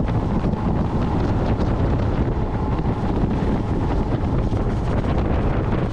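Wind buffeting the microphone on a fast-running motorboat, over the rush of spray and water along the hull: a loud, steady, deep rushing noise.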